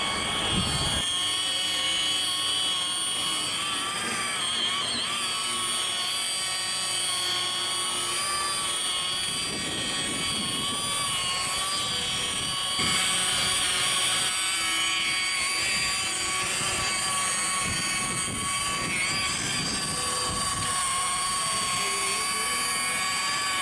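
Rotary polisher with a wool pad running steadily, a high-pitched whine that wavers slightly a few seconds in.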